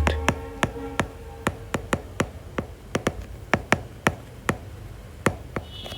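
Irregular sharp taps of a pen striking a writing surface, two or three a second, as a graph is drawn and labelled.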